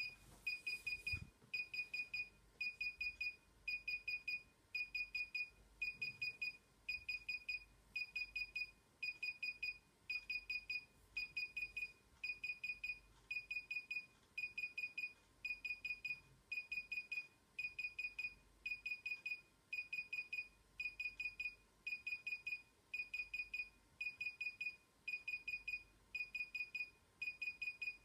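DJI Inspire 1 remote controller beeping while its firmware installs: short clusters of rapid high-pitched beeps, about three clusters every two seconds, repeating steadily.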